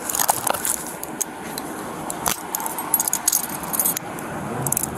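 Irregular metallic jingling and clicking from a police officer's duty gear, close to the body-worn camera's microphone.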